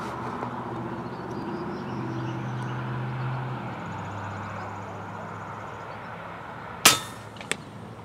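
A single sharp crack from an FX Impact M3 .30-calibre PCP air rifle being fired, about seven seconds in, over a low steady hum. A fainter click follows about half a second later.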